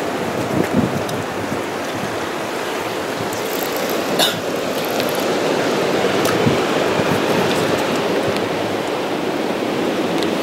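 Steady rush of ocean surf breaking, with a brief click about four seconds in.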